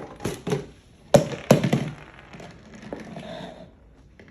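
A run of sharp cracks and knocks, as of hard things being handled and broken open, then a softer rustling for a couple of seconds.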